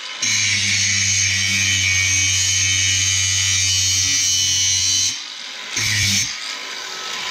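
Grinder with a grinding disc grinding down a weld on the end of a drain-cleaning flex shaft, running steadily. It stops about five seconds in, gives one short burst, and then goes quiet.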